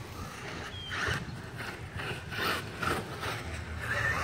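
A run of faint, irregular mechanical clicks and ticks. Near the end, the whine of a Traxxas brushless 4S RC truck's motor starts to rise as the truck approaches at speed.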